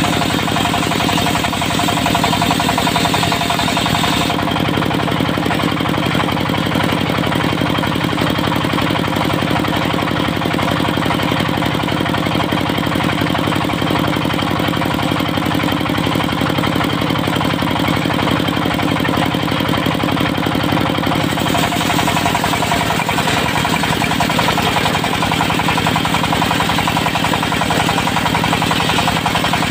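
Dongfeng diesel engine driving a portable circular-saw mill, running steadily with a knocking diesel beat. A higher hiss fades about four seconds in and comes back about twenty-one seconds in.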